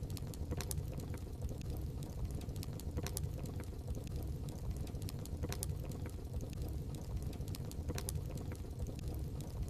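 Fireplace fire crackling: a steady low rumble of flame with scattered sharp pops and snaps, a few louder than the rest.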